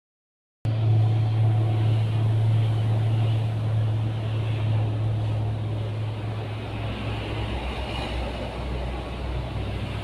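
A steady low engine hum, starting about half a second in and easing off a little after about seven seconds, over a faint outdoor hiss.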